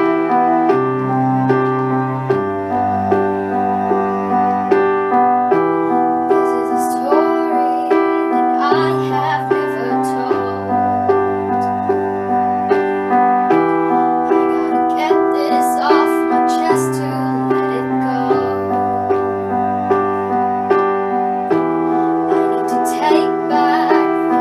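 A girl sings a ballad over a piano accompaniment playing repeated chords; the piano plays alone for the first several seconds before her voice comes in.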